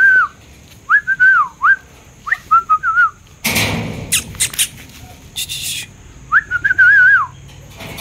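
A person whistling to call a puppy: short warbling whistles, wavering up and down in pitch, three or four times, with a few clicks and a brief rush of noise in the middle.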